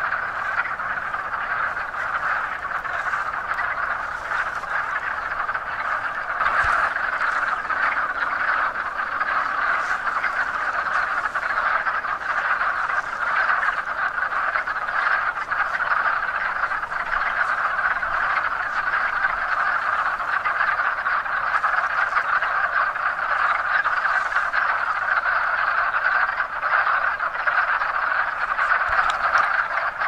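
Large chorus of wood frogs calling at a woodland pool: a dense, steady ruckus of overlapping croaks. It is the early-spring breeding chorus of the males.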